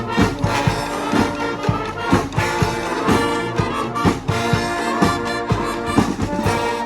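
Live brass street band playing a New Orleans-style brass-band tune: trumpets and trombones over a steady beat.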